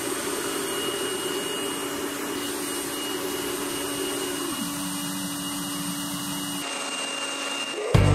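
Steady rushing noise of a forced-air burner firing a backyard metal-melting furnace, with a low hum that drops in pitch about halfway through. Music starts at the very end.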